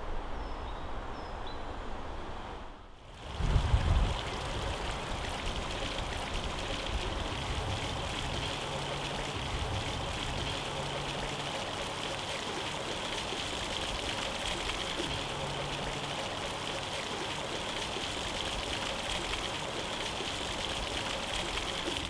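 Ground-level jet fountain: water jets shooting up out of paving and splashing back down onto the wet stone, a steady rushing patter. About three and a half seconds in there is a brief low rumble just as the water sound begins.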